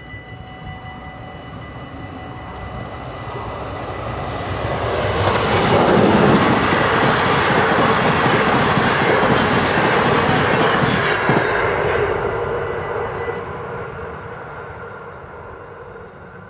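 NMBS Class 186 electric locomotive hauling a rake of NS ICR intercity coaches going past: the rolling noise of wheels on rail grows, is loudest for about five seconds as the train passes, then fades away.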